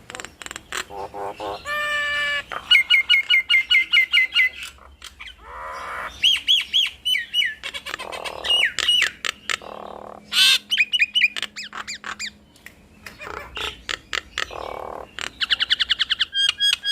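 Nias hill mynas calling: a varied run of sharp clicks, fast series of repeated whistled notes, looping whistles and a few harsh squawks, loud throughout.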